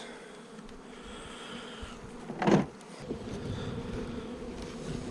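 Honeybees buzzing around an open hive, a steady hum. About two and a half seconds in there is one brief, louder sound.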